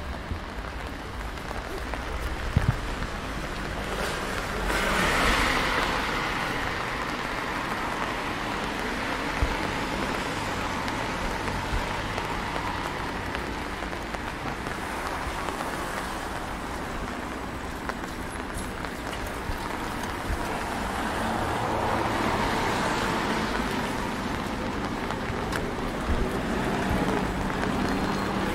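Cars passing on a wet road: steady tyre hiss on wet asphalt, swelling as a car goes by about five seconds in and again around twenty-two seconds in.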